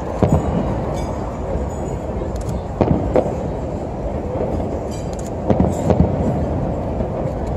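Aerial firework shells bursting with sharp bangs: one just after the start, two around three seconds in, and a quick cluster of three near six seconds, over steady background noise.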